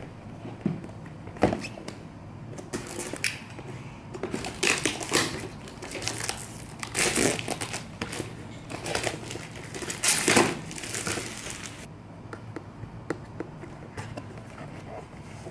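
Plastic shrink-wrap crinkling and rustling as it is pulled off boxes, with cardboard boxes handled and a few light knocks; quieter near the end as a box lid is opened.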